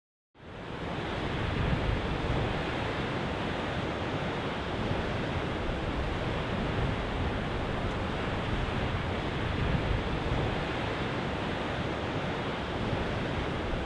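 Ocean surf: a steady wash of waves breaking, fading in over the first second and swelling slightly at times.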